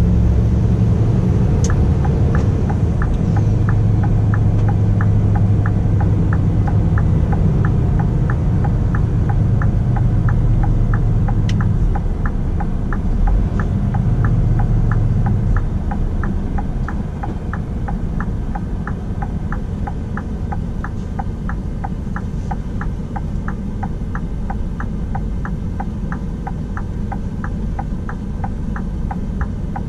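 Inside the cab of a Scania R450, its inline-six diesel runs with a deep rumble that eases to a quieter, lower running note about halfway through. The turn-signal indicator ticks about twice a second throughout.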